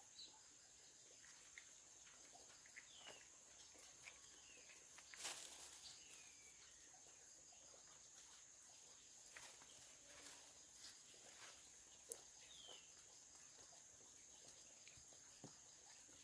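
Near silence: faint outdoor ambience with a few scattered, short falling bird chirps over a steady high-pitched drone, and a couple of brief soft clicks.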